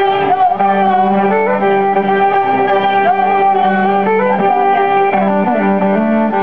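Live band playing an instrumental passage during a sound check: held melody notes step up and down in pitch over a steady lower note that enters about half a second in.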